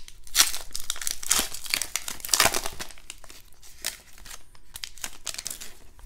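2020 Upper Deck Goodwin Champions foil card pack being torn open and crinkled by hand, loudest in the first three seconds, then quieter crinkling as the cards are slid out of the wrapper.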